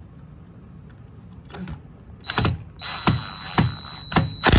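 A cordless power drill driving a screw in short, light bursts: a motor whine with a steady high tone, broken by about five sharp clicks.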